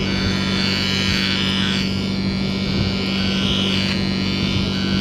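Wire tone tracer probe picking up the tracing signal on the clutch switch-to-PCM wire: a steady low hum with static, and a higher tone that wavers up and down over it. It is a light tone, but it's there, showing the signal reaches that wire.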